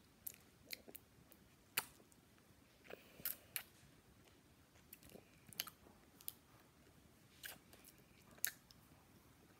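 Scattered short clicks and wet mouth smacks from a child sucking on a sour hard-candy pacifier, faint between the clicks.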